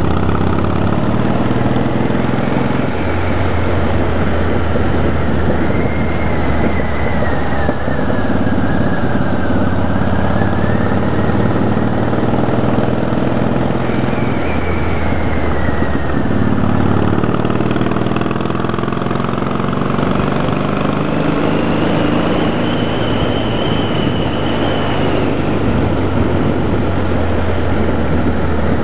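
Harley-Davidson V-twin motorcycle engine running under way, its note rising and falling as the rider rolls the throttle on and off, with a faint high whine that glides up and down.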